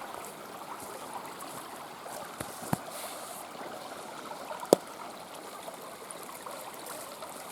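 Running water flowing steadily, with two sharp clicks about two seconds apart, the second louder.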